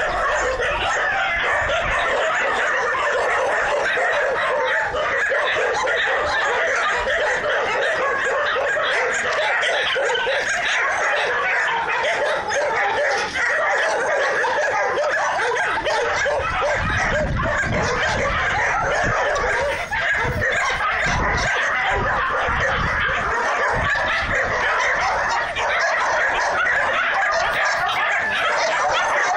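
A steady, unbroken din of many animal calls, with dogs barking among them.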